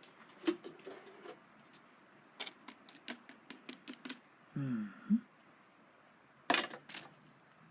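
Light clicks and taps of small hard objects being handled, a quick run of them in the middle, then a short low sound falling in pitch and a louder clatter near the end.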